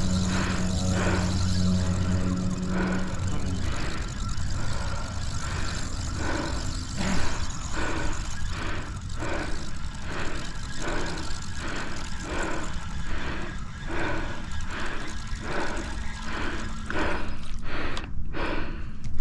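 Spinning reel cranked in a steady lure retrieve, a rhythmic whir about twice a second, over wind noise on the microphone. A low steady hum sounds in the first few seconds.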